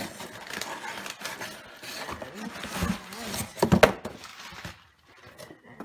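Cardboard shipping boxes being handled and pulled apart: rubbing and scraping of cardboard, with a quick cluster of knocks a little over three and a half seconds in.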